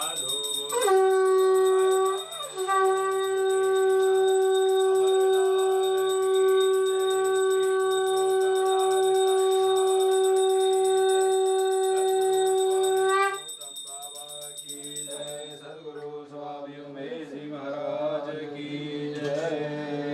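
A single strong musical note held steady for about twelve seconds, with a short break near the start. It then cuts off and gives way to quieter, wavering music or singing.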